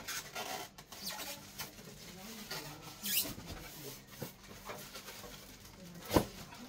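Packaging being handled during unboxing: irregular scraping, rustling and squeaking of cardboard and styrofoam, with light knocks and one sharper knock about six seconds in.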